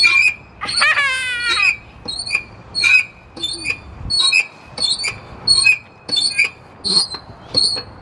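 Playground equipment squeaking in a steady rhythm, about two to three high squeaks a second as it moves. A brief wavering high squeal sounds about a second in.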